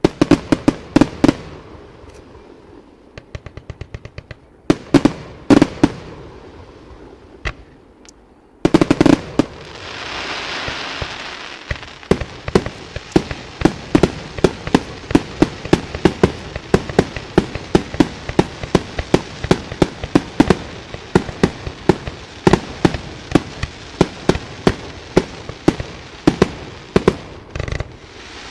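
Fireworks display: aerial shells going off in scattered groups of sharp bangs, then, after a brief hiss, a steady rapid run of reports, several a second, from about twelve seconds in.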